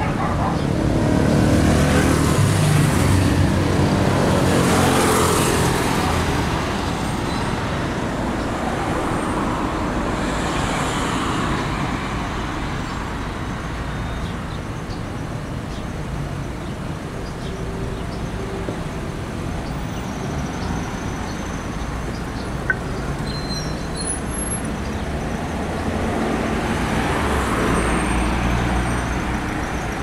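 Downtown street traffic: motor vehicles passing with engines running over a steady road rumble. The loudest passes come in the first few seconds and again near the end, with a single sharp click past the middle.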